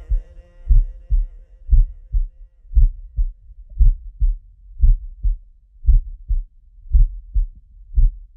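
Heartbeat sound effect: a deep double thump, lub-dub, about once a second, steady throughout. The last of the song's music fades out underneath in the first second or so.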